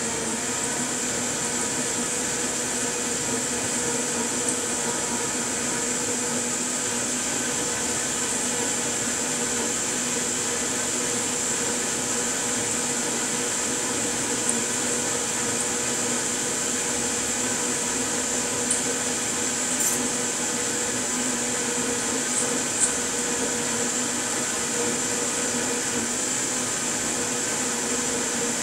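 Steady machine hum with a high whine throughout, from a motor such as a fan. A few faint sharp crunches of a cleaver cutting through crisp roast duck skin on a wooden board.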